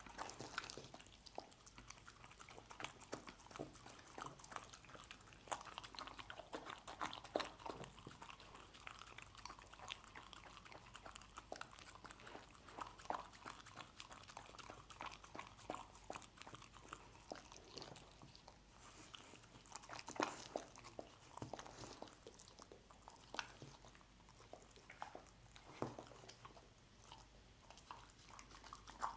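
A dog eating soft scrambled egg, close up: chewing and biting in a quick, irregular run of soft mouth clicks. A few clicks are louder, the loudest about twenty seconds in.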